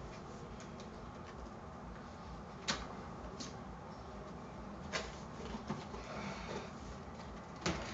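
A cardboard box being opened and handled: a few sharp clicks and knocks, three of them louder and spread a couple of seconds apart, over faint room noise.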